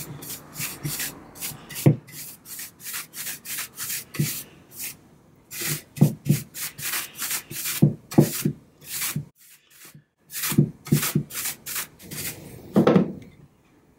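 Paintbrush bristles scrubbing wood stain onto a carved wooden chair rail in quick, repeated strokes, about three to four a second, with a short pause about two-thirds of the way through.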